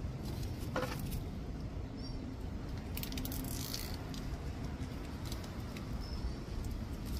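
Plastic bag crinkling and rustling in the hands as its mouth is tied shut around an air-layered branch, with a few light clicks near the start and a louder crinkle about three seconds in.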